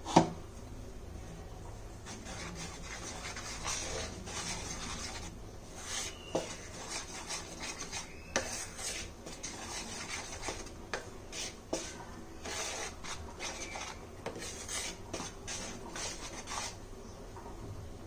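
A spoon scraping and knocking against a bowl as flour is scooped and handled, with one sharp knock at the start and then irregular rubbing scrapes and light clicks.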